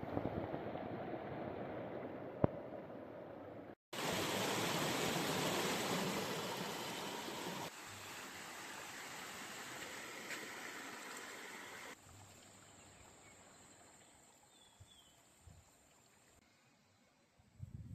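Running water, a steady rush of flowing water in several clips cut one after another: louder after a brief gap about four seconds in, then stepping down and fading quieter toward the end.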